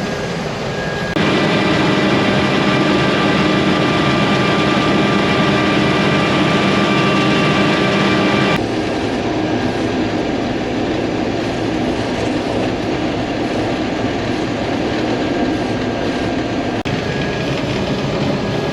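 Case IH 1480 combine harvester running steadily while cutting wheat, a constant machine drone with several held tones. It turns abruptly louder about a second in and drops back just as abruptly about eight and a half seconds in.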